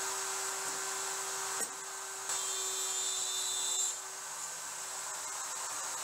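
Router in a CNC router table running at speed with a steady high whine while box-joint fingers are cut into the end of a board. The sound breaks off briefly about a second and a half in and shifts slightly twice.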